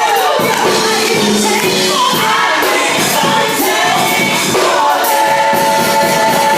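Live gospel worship band with singers holding long notes and sliding through vocal runs over the full band.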